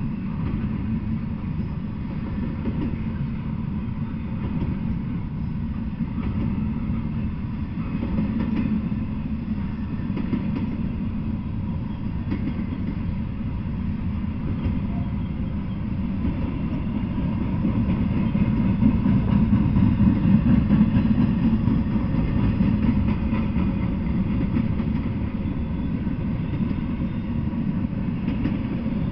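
Double-stack intermodal freight train rolling past: a steady low rumble of well cars on the rails, swelling somewhat about two-thirds of the way through.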